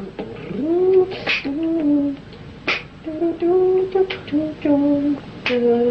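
A man's voice played back from a home demo work tape, humming a wordless melody line in held notes that step up and down, over mouth-made percussion hits about every 1.4 seconds. This is a songwriter sketching the instrument parts of a song with his voice.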